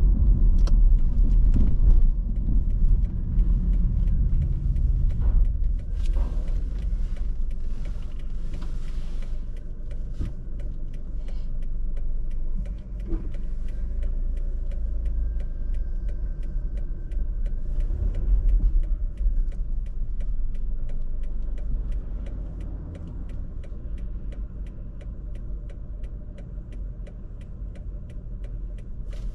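Inside a car's cabin: low road and engine rumble as the car slows to a stop, with the turn signal ticking steadily about twice a second for most of the time.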